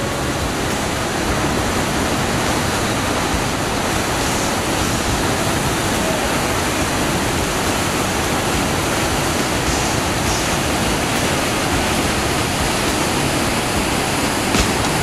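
Steady roar of a big whitewater rapid on the Colorado River, churning water with no let-up.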